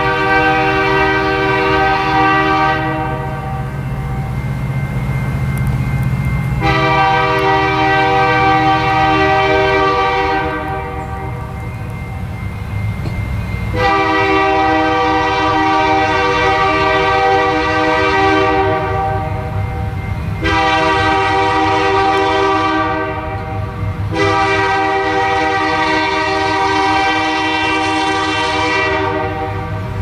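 Horn of an approaching train's diesel locomotive, sounding five long blasts one after another with short gaps between them. A low engine rumble runs underneath.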